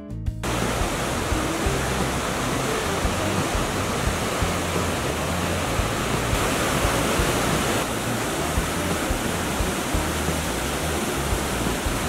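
Ryuzu Falls, a long cascade of water tumbling over rocks: a steady, dense rush of falling water that begins about half a second in.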